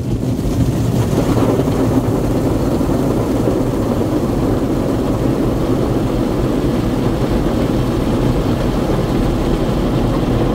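Heavy water stream from a fire truck's aerial ladder falling on a car's roof and windshield, heard from inside the cabin as a loud, steady rush.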